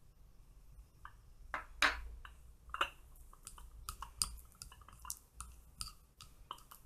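Metal spoon clicking and clinking against a glass bowl while coconut oil melts in it over boiling water. The light, irregular clicks and small clinks, several a second, begin about a second in.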